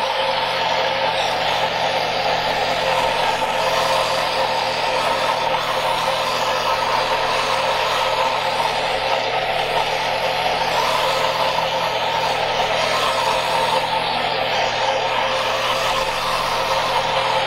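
Vitamix blender motor running steadily at low speed, churning a thick macadamia nut paste that is being pushed down into the blades with a tamper.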